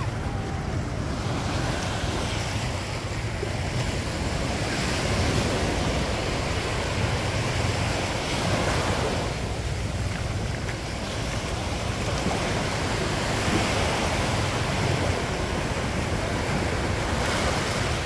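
Sea waves washing onto a sandy beach, the surf swelling every few seconds, with wind rumbling on the microphone.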